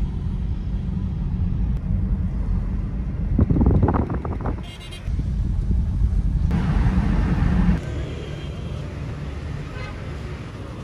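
Steady road and tyre rumble inside a moving Toyota Prius in town traffic, with a car horn sounding briefly about four seconds in. Near the end the rumble drops away to quieter street traffic noise.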